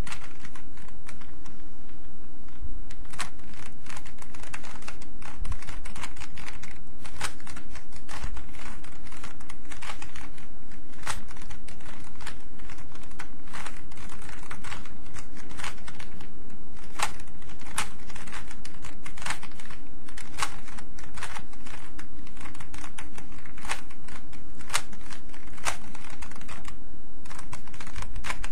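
Rubik's Cube turned one-handed: plastic layers clicking and rattling in an irregular run of sharp clicks, several a second, over a steady low hum.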